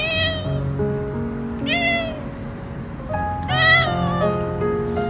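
A hungry tabby-and-white cat meowing three times as it walks up, begging for food; the third meow is the longest and loudest. Soft background music plays under it.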